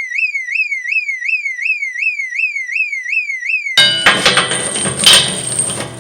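Electronic alarm sound effect: a high warbling tone sweeping up and down about three times a second, cutting off suddenly a little under four seconds in. It is followed by a different, dense clattering effect with a thin high tone over it.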